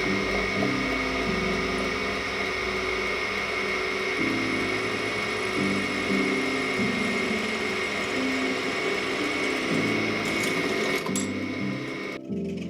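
Power drill boring a hole through a small offcut of steel box section, a steady whine that stops shortly before the end.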